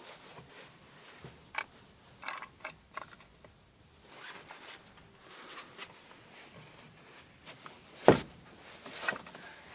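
Hand work fitting a metal bolt into the rear seat back's mounting hole: scattered small metal clicks and scrapes, with one sharp knock about eight seconds in and another about a second later.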